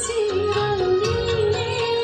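Bodo folk dance music played over a loudspeaker: a held melody line that wavers and steps in pitch, over a low rhythmic beat.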